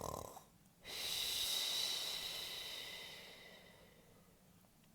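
An imitated snore for the sleeping bear: a short snorting inhale at the start, then a long hissing exhale with a faint whistle that fades away over about three seconds.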